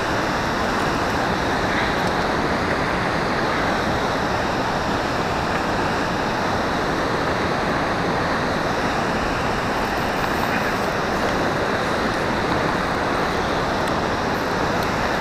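Steady, unbroken rushing noise of wind and moving river water, with no distinct knocks or tones.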